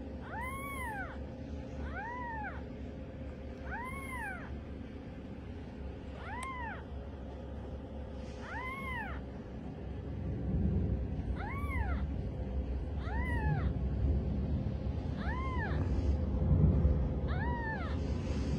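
Newborn kittens mewing: thin, high-pitched mews repeated about every one and a half to two seconds, each rising then falling in pitch. A low rumbling noise grows louder from about halfway through.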